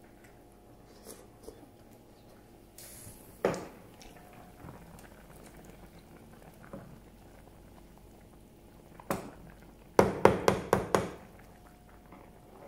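Pot of vegetable soup bubbling at the boil, with a wooden spoon knocking on the pot. About ten seconds in, the spoon raps six or seven times in quick succession.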